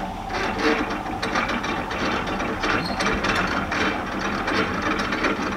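Canal lock paddle gear being wound with a windlass: the pawl clicks over the ratchet wheel in a steady run of about two or three clicks a second.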